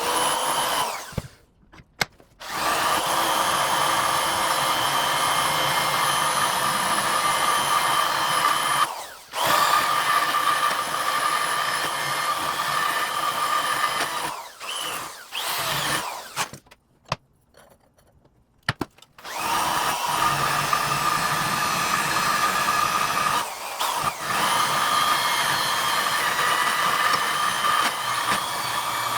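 Electric drill spinning a small cylindrical grinding bit against an exhaust header connector, grinding a notch into it. The drill runs with a steady whine in long runs, stopping and starting again several times.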